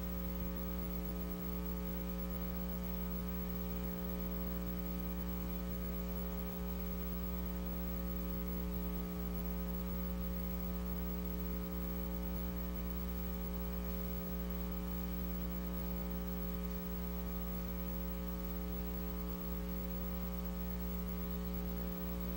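Steady electrical mains hum, a buzz made of many evenly spaced tones, with a faint low knock about every two and a half seconds.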